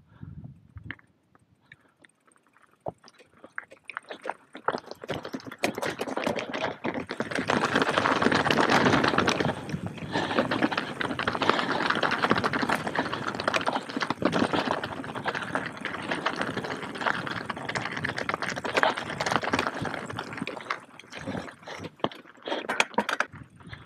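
Enduro mountain bike rolling over a rocky trail: a dense crunching and rattling of tyres and bike on loose stone that starts a few seconds in, is loudest a little later and thins out near the end.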